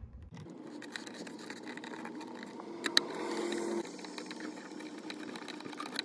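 Small clicks and scrapes of a stripped battery-negative cable being worked into a solar charge controller's screw terminal, with one sharper click about halfway through, over a low steady hum.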